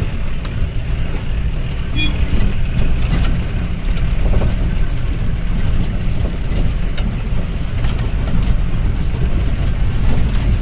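Jeep engine pulling over a rough dirt track, heard from inside the vehicle as a constant low rumble, with scattered knocks and rattles from the body and suspension over the ruts.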